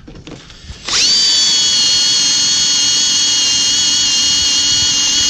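Cordless drill boring into metal at a ride-on mower's front wheel spindle, starting about a second in and running at a steady high-pitched whine.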